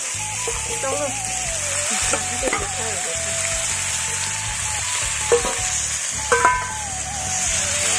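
Chicken sizzling as it fries in hot oil in a large black iron kadai, stirred with a metal spatula. The spatula knocks sharply against the pan about five seconds in and again at about six seconds.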